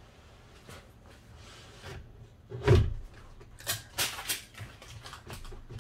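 A single heavy thump about two and a half seconds in, followed by a quick run of sharp clicks and clatters as parts inside a car door are worked by hand.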